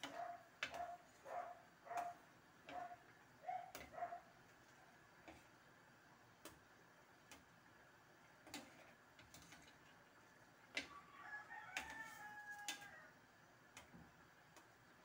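Metal ladle scraping and squeaking against the bottom of a stainless steel frying pan of simmering coconut-milk stew, in a steady stirring rhythm of about three strokes every two seconds that stops about four seconds in. After that come a few faint, scattered clicks of the ladle on the pan, and a faint drawn-out higher sound a little past the middle.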